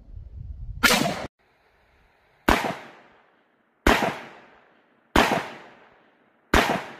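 Five .44 Magnum shots from a Taurus Model 44 revolver with a compensated barrel, fired about one and a half seconds apart. Each shot is a sharp crack followed by a decaying echo. The first shot's echo is cut short.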